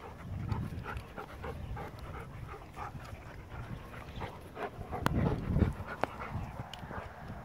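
A goldendoodle and a Bernese mountain dog puppy play-fighting, with panting and short scuffling noises throughout. It grows louder about five seconds in, where two sharp clicks stand out.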